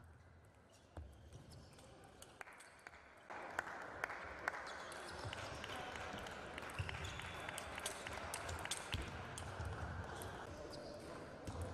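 Table tennis rally: the plastic ball ticking off rubber paddles and the table in a run of sharp clicks, over a background din that gets louder about three seconds in.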